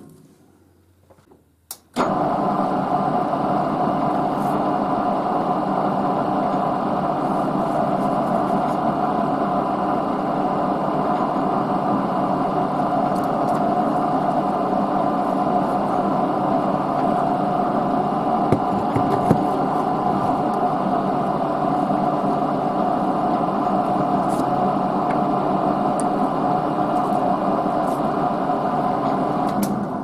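Warco GH1322 lathe running steadily with a Burnerd collet chuck on the spindle: an even motor and gear hum with a steady whine. It comes in suddenly just after a click about two seconds in.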